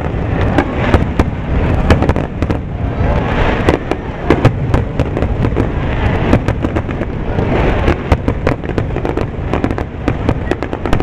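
Aerial firework shells bursting in a dense, rapid barrage: many sharp bangs and crackles in quick succession over a continuous low rumble.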